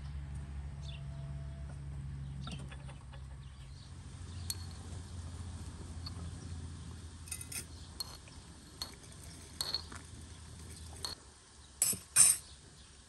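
A metal teaspoon scooping loose tea from a clay pot into a glass teapot, with scattered light clinks and taps of spoon on pot and glass. Near the end come two sharp, loud metallic clinks as the samovar's tap is handled. A low steady rumble runs under the first two-thirds.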